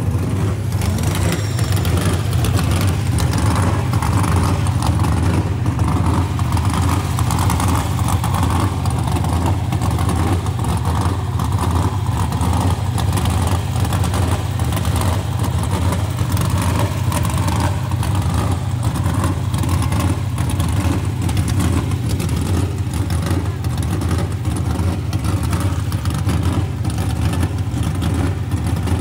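A vehicle engine running steadily and loudly, with a constant low drone and a noisy haze over it, and voices faintly in the background.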